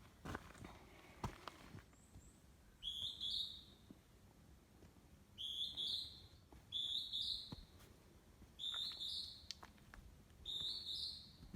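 A songbird in the forest repeats the same short whistled phrase five times, each lasting about a second, with pauses of one to two seconds between them. Faint clicks, likely footsteps, come in between the phrases.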